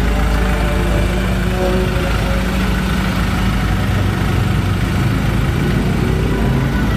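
Ford Ranger Raptor's diesel engine idling steadily through a newly fitted stainless steel rear Y-pipe exhaust with twin Akrapovic tips.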